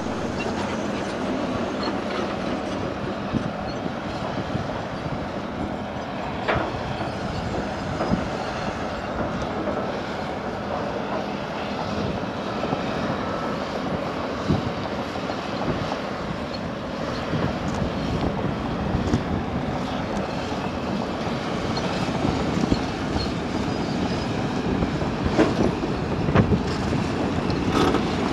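MAN tipper truck's diesel engine running with a steady rumble and rattling. Toward the end it grows louder, with more clattering, as the raised body tips its load of earth out of the back.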